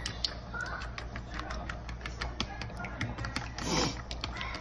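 Eggs and milk being beaten in a bowl by hand, the utensil clicking quickly and irregularly against the bowl.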